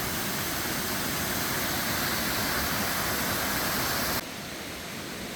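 Steady rush of falling creek water. About four seconds in it drops abruptly to a quieter, steady rush.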